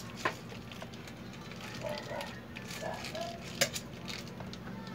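Faint voices in the background over a steady low hum, with two sharp clicks, one just after the start and one a little past the middle.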